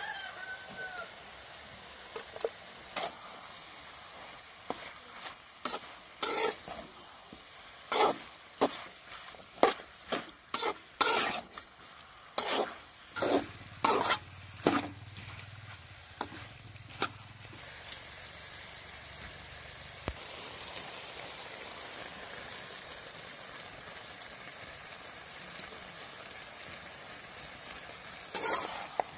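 Flat metal spatula scraping and clacking against a large metal kadai as chicken pieces are stirred, in irregular strokes over the first half or so, over a faint sizzle of frying. After the stirring stops, the steady sizzle of the chicken frying in the pan carries on.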